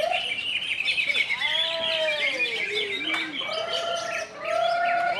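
Green leafbird (cucak ijo) singing a varied song: rapid high chirps over slower arched and held whistles, with a brief break about four seconds in.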